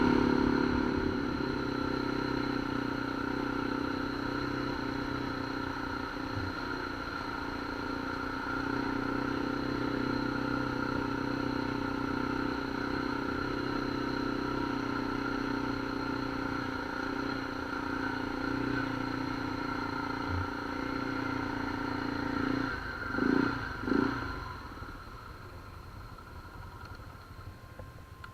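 A small engine running at a steady speed, with two brief louder surges near the end, after which the sound drops away to a lower level.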